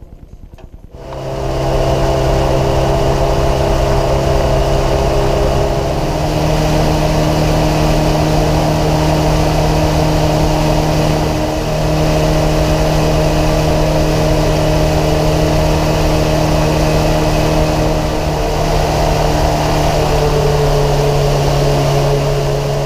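Tiller outboard motor on a small fishing boat starting about a second in, then running steadily under way; its pitch steps up around six seconds in and holds.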